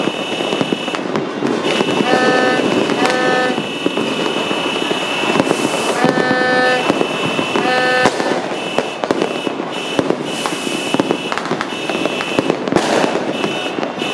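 Dense fireworks and firecrackers going off all around: a continuous crackle with many sharp bangs. Short horn blasts sound over it several times, along with a high steady tone that breaks into repeated beeps in the second half.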